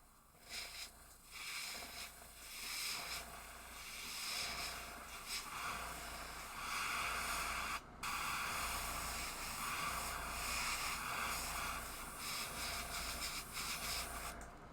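Airbrush spraying paint in a series of passes that rise and fall, starting about half a second in, with a brief break about eight seconds in.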